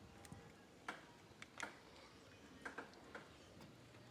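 Faint, irregular small clicks and taps, about half a dozen spread over the few seconds, over near silence.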